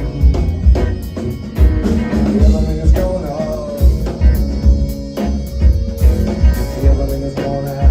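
A live band playing an instrumental passage: drum kit hitting a steady groove about twice a second under bass and guitar.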